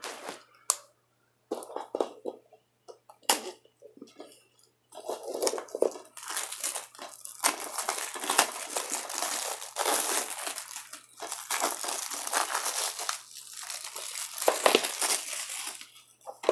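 Plastic shrink wrap being torn and peeled off a DVD case: a few scattered tears and clicks, then several seconds of continuous crinkling and crackling.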